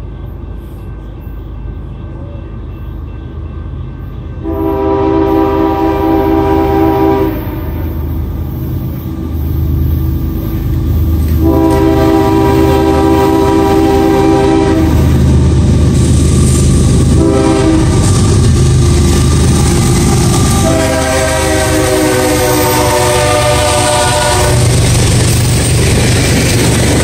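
Freight train's diesel locomotive approaching a grade crossing and sounding its air horn in the crossing signal: two long blasts, a short one, then a long one. The engine rumble gets louder as it nears, and the freight cars are rolling past by the end.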